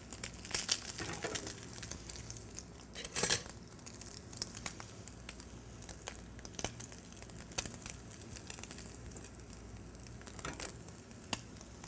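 Crab cakes frying in oil in a non-stick saute pan over high heat, sizzling faintly with scattered crackles and pops. A brief louder burst about three seconds in, as a cake is turned in the pan.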